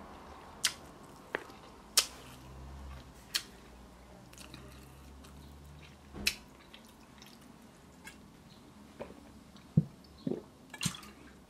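A person chewing a mouthful of Beyond Burger with mouth noises, a few sharp wet smacks and clicks spread over the first half. Near the end come several short gulps as water is drunk from a plastic bottle.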